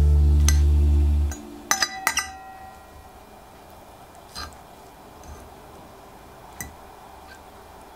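Background music ends on a held low note about a second in. Metal cutlery then clinks against a ceramic plate, three or four quick clinks with a short ring, followed by a few faint taps as the salad is scooped.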